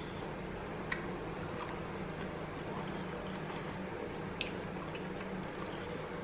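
A capuchin monkey chewing raw pumpkin: a few faint, scattered clicks over a steady low hum of room tone.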